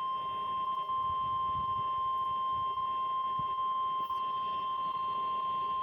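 NOAA Weather Radio warning alarm tone: one steady, unbroken high beep played through a radio, the signal that a warning is about to be broadcast.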